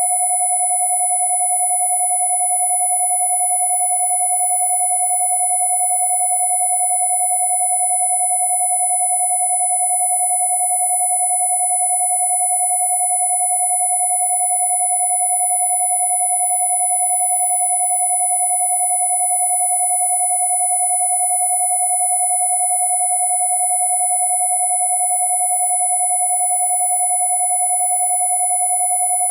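Two steady electronic sine tones sounding together without change: a mid-pitched tone at 727 Hz and a thin, very high one at 10,000 Hz.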